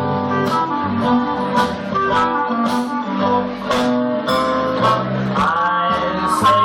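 Live band playing a slow instrumental passage between sung lines: guitar with a sharp beat about once a second. A held note slides up and sustains near the end.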